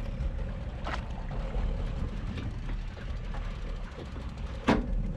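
A boat under way at sea: a steady low engine rumble with water rushing past the hull, broken by two sharp knocks, one about a second in and a louder one near the end.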